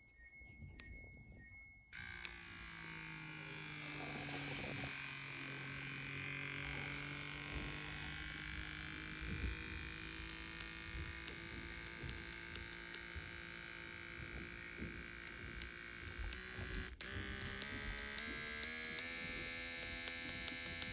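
Revomadic electric cupping cup: a few faint electronic beeps as its buttons are pressed, then its small suction pump starts about two seconds in and runs steadily with a low hum and light clicks. Near the end its pitch steps up a few times.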